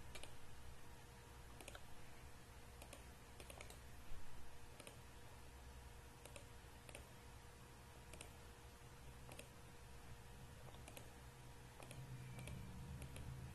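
Faint computer mouse clicks, single and in quick pairs, coming irregularly, over a low steady electrical hum.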